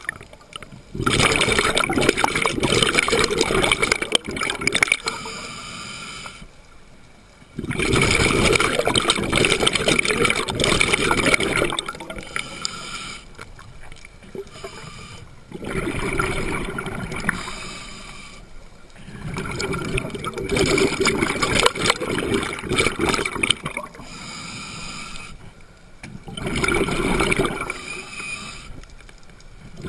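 Scuba regulator exhaust bubbles heard underwater, in five bursts of a few seconds each, with quieter gaps between as each breath is drawn in: the slow, regular breathing of a diver near the camera.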